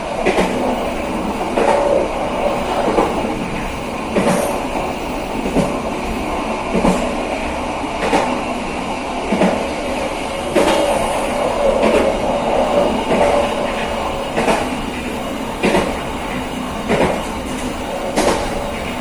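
KA Serayu passenger train running along the track: a steady rumble of wheels on rail, with a sharp knock about every 1.3 seconds as the wheels pass over rail joints.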